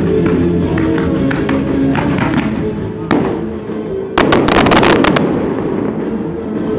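Fireworks going off over music: a sharp bang about three seconds in, then a rapid string of crackling bangs lasting about a second.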